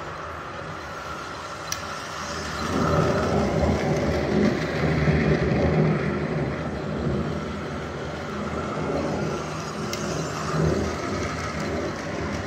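A model train running on its track: a steady rumble of motor and wheels that grows louder for several seconds a little way in, then eases, as it passes close. Two short clicks are heard, one early and one near the end.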